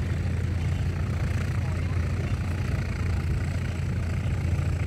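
An engine running steadily, a low, even rumble with no change in speed.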